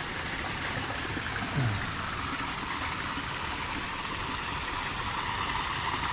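Steady rushing of flowing creek water, with a short low grunt of a man's voice about a second and a half in.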